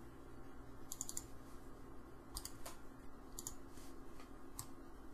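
Computer mouse and keyboard clicking: a quick run of three or four clicks about a second in, then scattered single clicks, over a faint steady hum.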